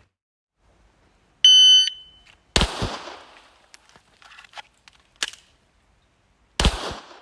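An electronic shot timer beeps once, then a pistol shot follows about a second later and a second shot about four seconds after that, with a fainter sharp crack in between. The beep is the start signal of a timed drill.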